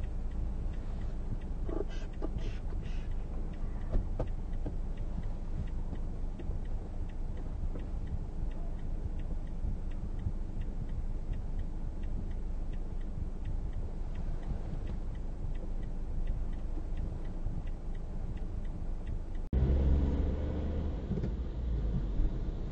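Low engine and cabin rumble of a car idling at a standstill, with a faint, regular ticking over it. About 20 seconds in it cuts to louder, steady road and engine noise of a car on the move.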